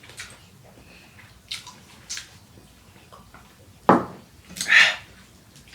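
Wet eating noises: scattered lip smacks and chewing clicks as food is eaten by hand. About four seconds in comes a sharp knock, the loudest sound, and right after it a short noisy burst.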